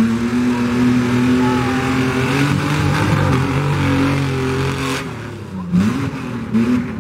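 Pickup truck's engine at full throttle, held at high revs as it launches and runs the dirt course. The revs drop about five seconds in and then rise briefly twice near the end.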